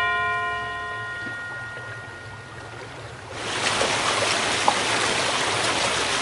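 A ringing tone fades out over the first two seconds. About three seconds in, a steady rush of flowing water comes up, like a stream running through a tunnel.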